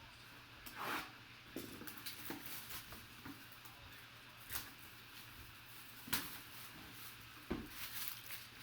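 Faint handling noises of packaging being opened: scattered rustles and sharp clicks of cardboard and plastic, a few louder ones among them.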